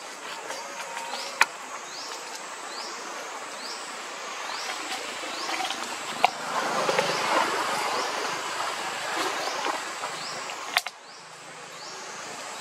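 Forest insect chirping in short rising notes, a little under two a second, over a faint steady high drone. A rustling noise swells in the middle, and a few sharp clicks stand out.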